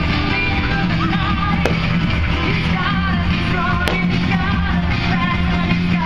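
Loud rock-style music with singing, with two sharp firework cracks cutting through it, one about a second and a half in and one near four seconds in.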